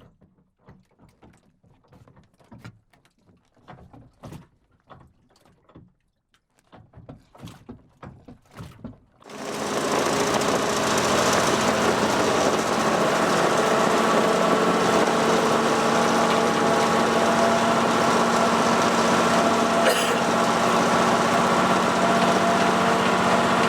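Faint scattered clicks, then about nine seconds in a small boat engine comes in abruptly and runs at a steady, even speed.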